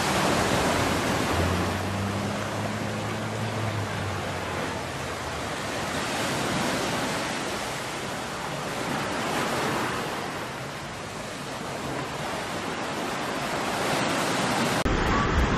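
Steady ocean surf breaking on the beach, with wind on the microphone. For a couple of seconds near the start a faint low drone rides under it, fitting the small single-engine propeller plane on approach.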